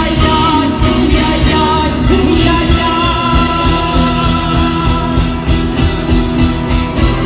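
Andean folk band playing live: acoustic guitar and bandolin strings over a steady, even percussion beat, with singing.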